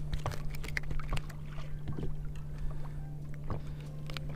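Small sharp clicks and rustles of hands handling a freshly caught crappie and the jig on its line, over a steady low hum.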